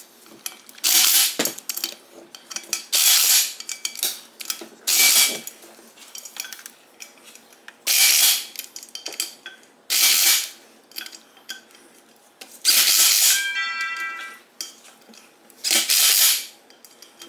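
Ratchet wrench clicking in short bursts, about one every two seconds, as the beadlock ring bolts of a wheel are tightened in a circular pattern.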